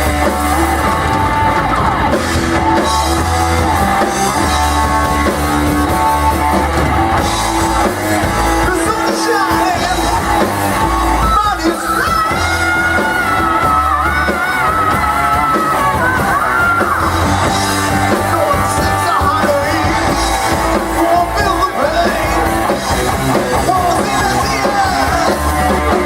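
Live rock band playing a song: sung vocals over electric guitar, bass and drums, with a wavering melody line in the middle.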